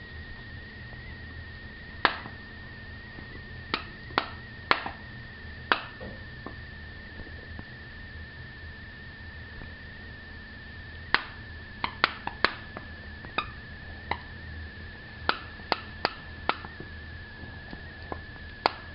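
A dog's clicking toy clicking sharply and irregularly as a Toy Fox Terrier plays with it: a few clicks in the first six seconds, then a quicker run of clicks from about eleven seconds on. A faint steady high-pitched tone sits underneath.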